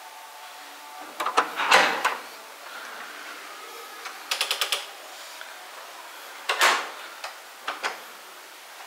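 Hotel room door being unlocked, opened and shut: a click and a loud rush about a second in, a quick run of clicks from the latch and handle near the middle, a heavier knock of the door later, then a few lighter clicks.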